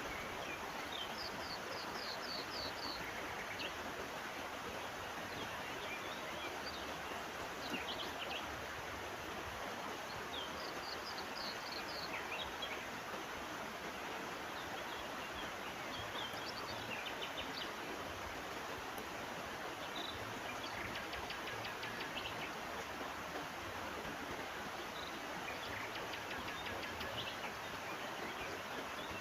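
Steady rushing of a stream or river, with birds chirping over it: short high calls and quick runs of repeated chirps now and then.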